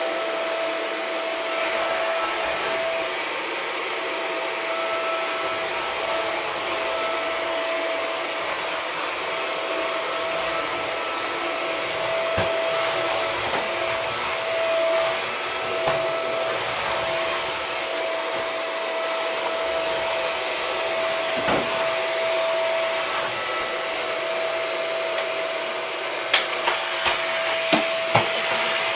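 Shark vacuum cleaner running steadily, a hiss with a steady whine. A few sharp clicks near the end.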